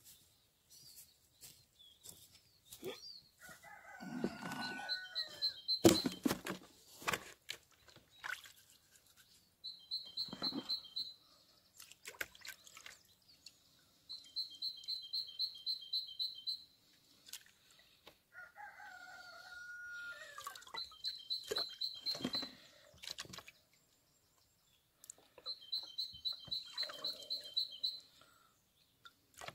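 A rooster crowing twice, well apart, while a small songbird repeats a fast, high, even trill about five times. Scattered sharp clicks and knocks run alongside, the loudest a clatter just after the first crow.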